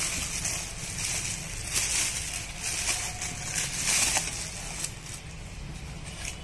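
Clear plastic wrapping crinkling and rustling as it is pulled off a car stereo head unit, in irregular bursts that are busiest two to four seconds in and thin out near the end.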